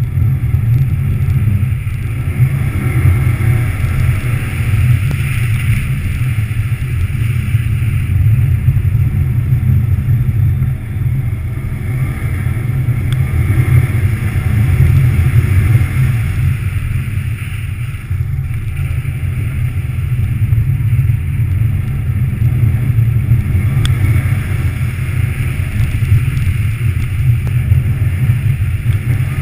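A 2014 Subaru WRX STI's turbocharged flat-four engine pulls steadily while the car is driven hard on studded tyres over a frozen-lake ice track. The deep drone swells and dips in level with the throttle.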